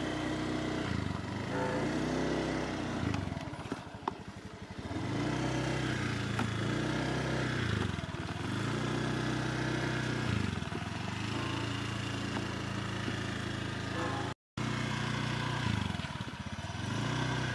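Small Honda scooter engine running while riding, its pitch rising and falling several times as the throttle is opened and eased. The sound drops out for a moment about three-quarters of the way through.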